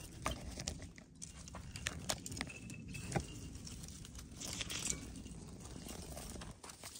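Gloved hand working loose potting soil: scattered soft crackles, rustles and small clicks over a faint low background rumble.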